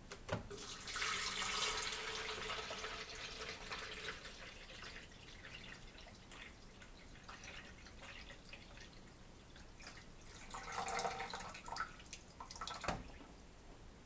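Water poured from a glass carafe into the reservoir of a Mainstays 12-cup drip coffee maker. A first pour starts about half a second in and tapers off over a few seconds. A second, shorter pour comes about ten seconds in, and there is a sharp knock near the end.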